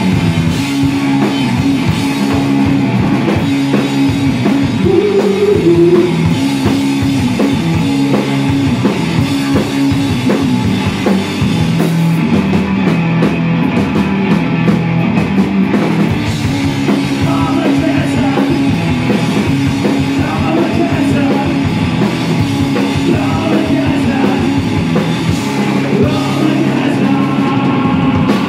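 A rock band playing live and loud: electric guitar chords driving over a full drum kit.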